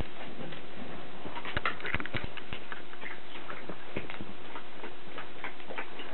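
Welsh Corgi puppy's claws clicking and tapping on a hard floor as it moves about, in quick irregular ticks with a busier flurry about a second and a half in.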